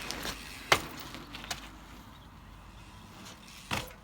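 Several sharp knocks and clicks over faint background noise, the loudest a little under a second in and another near the end.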